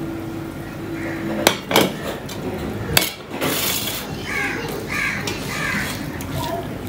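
Stainless steel bowl and plate clinking as curry is tipped out and the bowl is set down, a few sharp knocks about one and a half to three seconds in. A bird calls three times in the background near the end.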